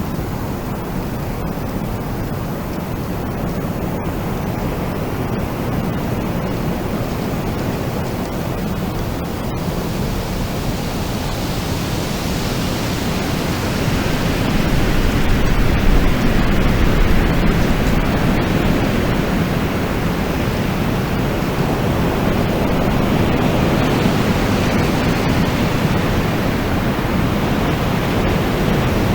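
Wind blowing as a steady rushing noise that strengthens in a gust about halfway through, then eases slightly while staying strong.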